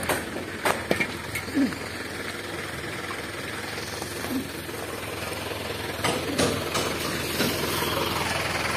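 A truck engine running at idle, a steady low hum, with a few short sharp knocks and clicks near the start and again about six seconds in.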